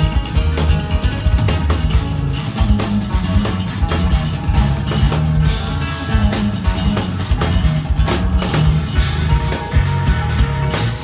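A live instrumental progressive metal band playing: guitars over a full drum kit, with dense drum hits and a heavy low end.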